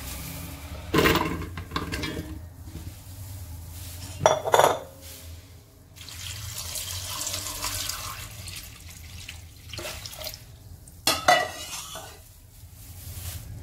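Cubed raw potatoes tipped into a metal cooking pot, clattering about a second in and again about four seconds in, then water poured in over them, with another clatter near the end.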